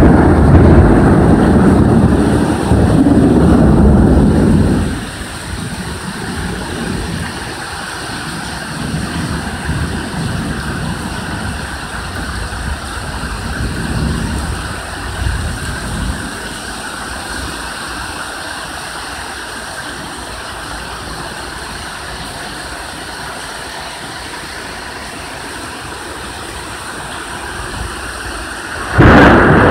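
Loud rolling thunder for about five seconds, then steady rain with a couple of fainter rumbles midway; a new loud thunderclap breaks in near the end.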